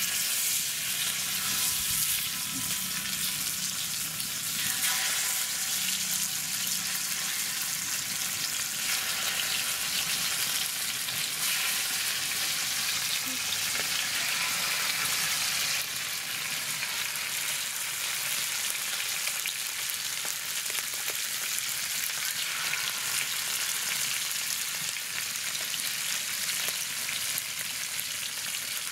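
Indian mackerel frying in oil in a wide iron pan, a steady, dense sizzle that eases slightly about halfway through.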